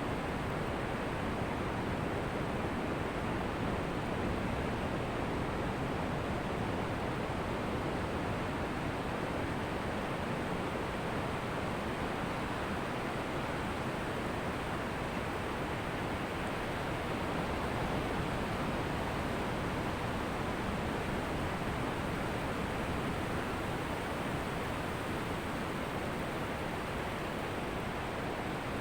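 Ocean surf: waves breaking and washing ashore, an even, continuous rushing hiss with no distinct single crashes.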